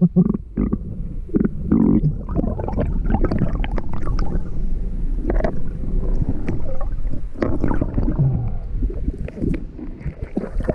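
Muffled underwater sound of river water heard through a submerged camera: a steady low rumble with scattered clicks and knocks.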